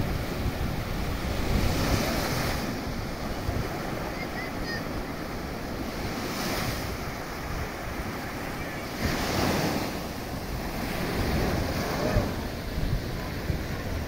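Small surf breaking and washing up a sandy beach, swelling into a louder hiss about four times as waves break, over a steady low rumble of wind buffeting the microphone.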